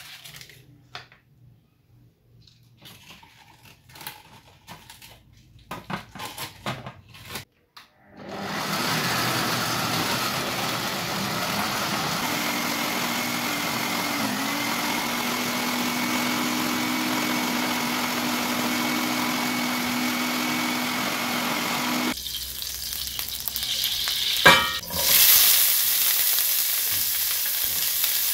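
A few handling clicks and knocks, then a stand mixer's food-processor attachment runs steadily for about fourteen seconds, shredding cabbage, and stops abruptly. Near the end there is a knock, and onions start sizzling as they fry in oil in a pan.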